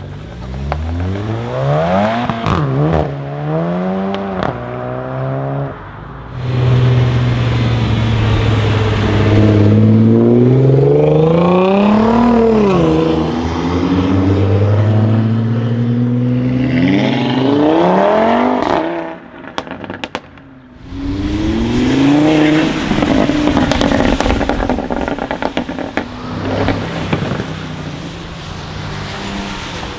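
Audi RS3 8V's turbocharged five-cylinder engine revving hard in repeated climbs, its pitch rising and dropping back several times as it accelerates, with a long steady loud stretch in the middle. A few sharp exhaust pops come as it backs off about two-thirds of the way through.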